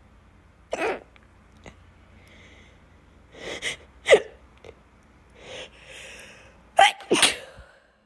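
A woman with hiccups sneezing several times, with short hiccups and breaths in between. The loudest sneeze comes about four seconds in, and two more follow close together near the end.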